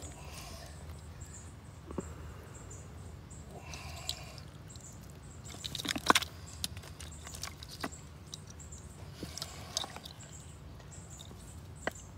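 Hands working in a muddy, water-filled irrigation valve box: scattered clicks, rustles and small splashes from wires and plastic valve parts, with the loudest clatter about six seconds in, over a steady low background hum.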